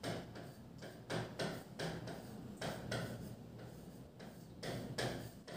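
Stylus tapping and scraping on a touchscreen while handwriting: a string of faint, unevenly spaced ticks, about two or three a second, one for each pen stroke.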